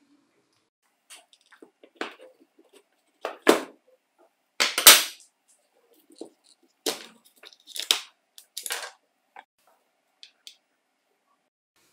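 Plastic jigsaw housing and its metal gear and shaft parts being handled on a wooden workbench: a series of separate clicks, knocks and rattles, the loudest about five seconds in.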